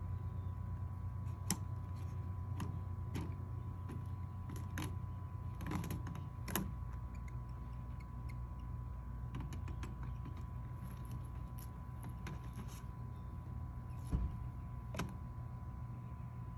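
Scattered light clicks and ticks from a plastic garden pinwheel being turned and handled by hand, over a steady low background rumble.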